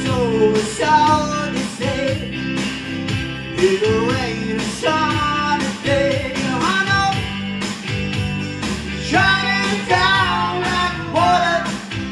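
Live rock-and-roll band playing: electric guitar chords on a steady beat, with a lead line over them that slides and bends in pitch.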